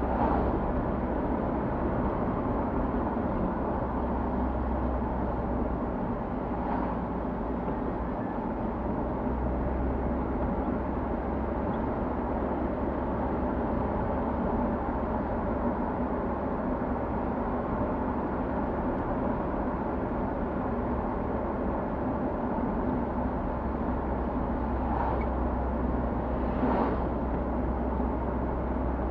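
Steady road and engine noise of a moving car heard from inside the cabin, with a few faint brief knocks near the start, about seven seconds in and near the end.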